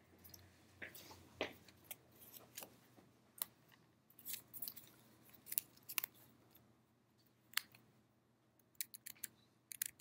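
Faint, irregular clicks and light rustles spread over several seconds, with a quick run of clicks near the end.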